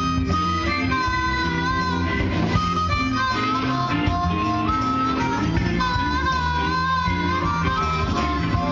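Live band playing an instrumental passage: a harmonica carries long held notes that bend and step in pitch, over electric guitar, bass guitar and drums.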